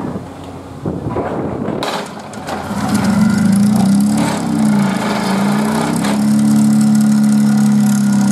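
Excavator-mounted hydraulic vibratory pile driver driving a Larssen steel sheet pile. After about two seconds of knocking and rattling, it comes up to a loud steady hum whose pitch wavers for a couple of seconds and then settles.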